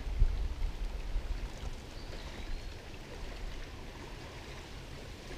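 Wind rumbling on the microphone, strongest in the first second and then easing, over light water lapping around a small boat.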